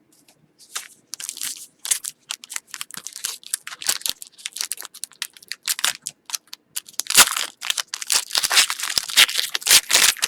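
A foil trading-card pack wrapper being torn open and crinkled, in a rapid run of irregular crackles that grows denser and louder in the second half.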